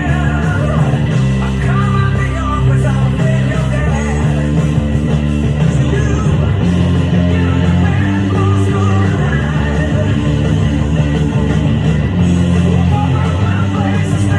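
Hard rock recording with electric guitar and singing, with a prominent electric bass guitar line played along under it.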